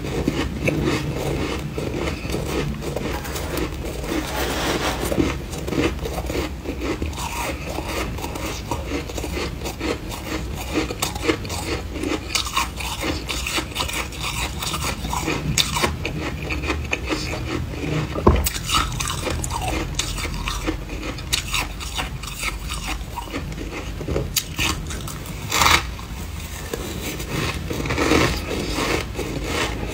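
A person chewing and crunching mouthfuls of freezer frost, with a metal spoon scraping and scooping the frost in a glass dish. A dense crackle of small crunches runs throughout, with a few sharper clicks.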